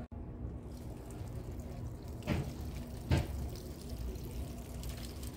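Water sprinkling from a watering can's rose onto zinnia flowers and leaves, a steady pattering, with two brief louder sounds about two and three seconds in.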